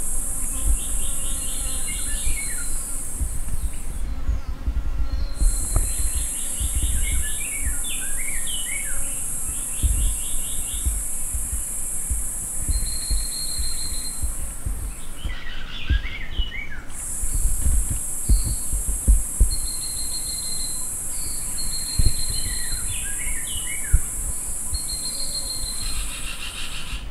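Forest ambience: a high, steady insect drone that stops twice for about a second, under scattered bird chirps, trills and quick falling series of notes.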